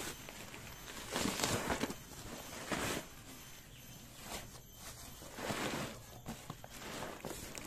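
Black plastic wrapping and a cardboard box being handled and pulled open by hand: plastic rustling and cardboard flaps scraping and tearing, in several short bursts.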